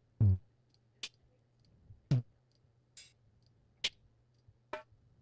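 Single drum sounds from the UJAM Beatmaker DOPE drum plugin, auditioned one at a time as each instrument key is clicked: six short hits about a second apart, some low with a falling pitch, others short and bright.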